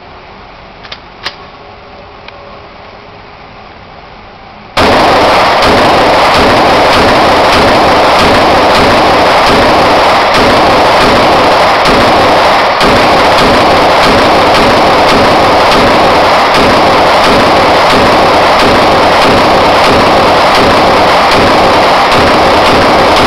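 A few small clicks, then a string of 9mm pistol shots from a Glock 26 emptying a 33-round magazine. The shots overload the recording into a continuous, heavily distorted roar in which the separate shots are barely picked out.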